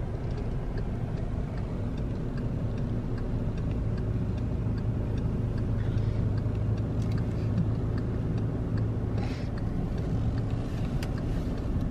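Car interior: the low, steady hum of the engine and tyres as the car rolls slowly, with a faint, regular ticking like a turn-signal indicator.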